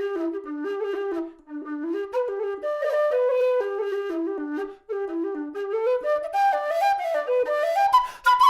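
A Karavaev Nightingale aluminium low whistle playing a melody of stepping, held notes, rising into the second octave near the end, with short breath pauses about a second and a half and five seconds in. It is played to show its tone and tuning, which the player now finds fine.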